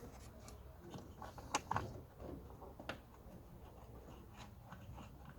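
Faint, scattered clicks and light scrapes of hands handling plastic trim pieces and a bolt, with a couple of sharper clicks in the middle.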